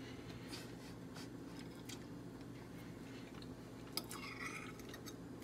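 Faint clicks and scrapes of a metal fork on a plate as a piece of breaded chicken is cut and speared, with a sharper tap about four seconds in, over a low steady hum.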